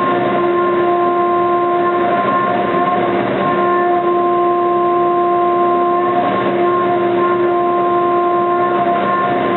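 CNC milling machine cutting aluminium at 2 mm depth of cut and 15,000 mm/min table feed: the cutter makes a steady pitched whine over a cutting hiss. The tone briefly blurs about three and six seconds in.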